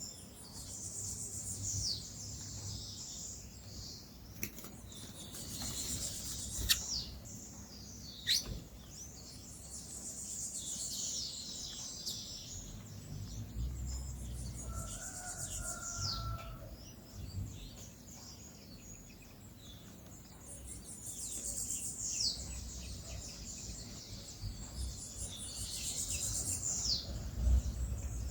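Songbirds chirping and singing: high, thin phrases with quick falling sweeps that come back every few seconds, with a few sharp clicks in between.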